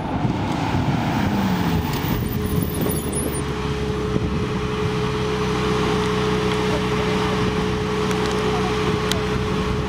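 Ferrari 458 Italia's V8 engine, its revs falling as the car slows and rolls to a stop, then idling steadily.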